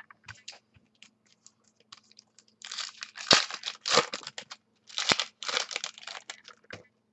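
Foil trading-card pack wrapper crinkling and tearing in short bursts as it is ripped open, after a few light clicks of cards being handled.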